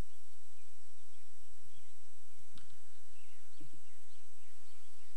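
Steady background hiss with faint, scattered bird chirps, mostly in the second half, and a single sharp click about two and a half seconds in.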